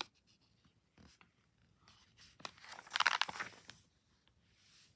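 Comic paper rustling and crinkling as pages are handled and turned: a few light ticks, then a longer, louder rustle about three seconds in.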